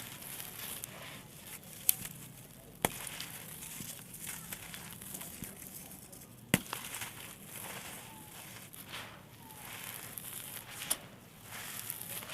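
Small dry blocks of red sand and clay crumbling with a steady crisp crackle, broken by four sharp pops: about two and three seconds in, near the middle, and near the end.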